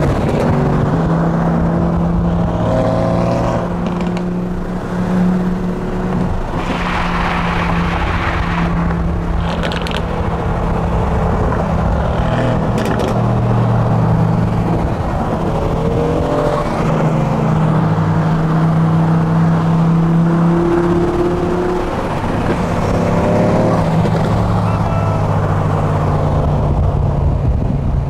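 Supercar engine running under way, its note mostly steady with a few short rises in pitch.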